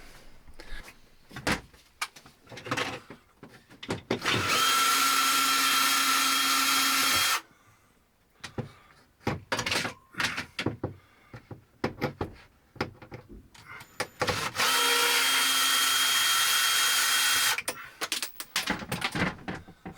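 Cordless drill driving screws through metal cable clamps into pop-toggle wall anchors: two runs of about three seconds each at a steady pitch, the second near the end, with small clicks and knocks of handling in between.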